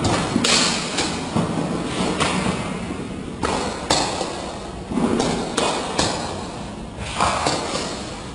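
Table tennis balls knocking off paddles and table in a string of sharp, uneven clicks, each with an echoing tail.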